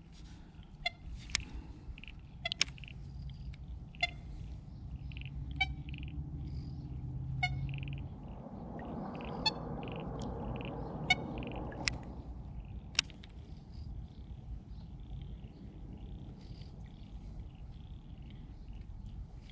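Baitcasting reel and rod being worked while jigging a lure: soft rhythmic winding of the reel with scattered sharp clicks, over a low rumble that eases after about twelve seconds.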